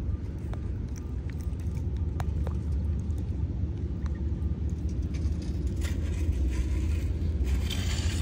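Long-handled metal-detecting scoop working in a shallow gravel riverbed under a steady low rumble of moving water, with a few small knocks. From about six seconds in, water and gravel hiss as the scoop digs in.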